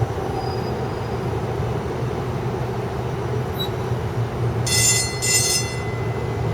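MAX light-rail train rumbling steadily past. About five seconds in, a high-pitched wheel squeal sounds in two short pulses, then thins to a single whine.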